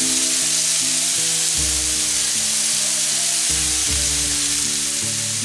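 Bacon, chorizo and vegetables frying in olive oil in a hot pan, a steady dense sizzle. Background music with sustained notes plays underneath.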